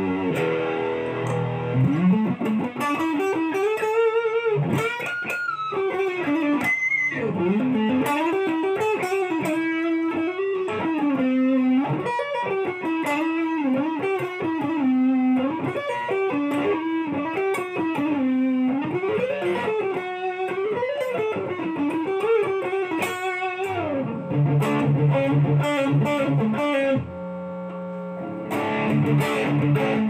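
Photogenic Telecaster-style electric guitar played through an amplifier: a single-note lead melody that glides up and down in pitch, changing near the end to held chords, with a brief dip in loudness shortly before the end.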